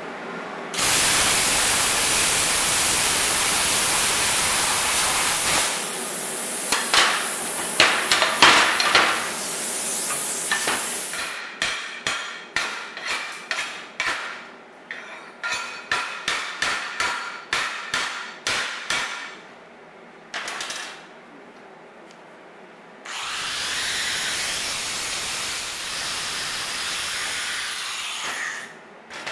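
Handheld plasma cutter cutting steel plate, a loud steady hiss that starts about a second in and lasts around ten seconds. Then a quick run of hammer strikes, about two or three a second, on the freshly cut plate, typical of knocking off cutting slag with a chipping hammer. Near the end an angle grinder runs steadily on the plate for several seconds.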